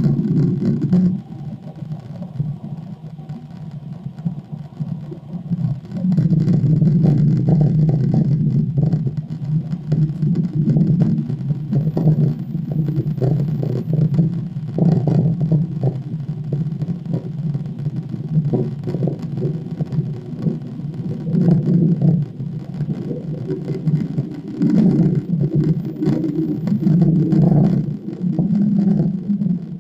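Low, continuous rumble with a wavering, muffled layer above it, quieter for the first few seconds and louder from about six seconds in. The recorder takes it for an amplified plane sound with a hidden communication layer.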